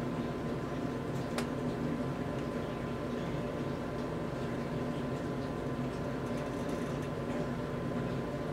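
Steady low hum and hiss with a faint constant tone, and one faint click about a second and a half in.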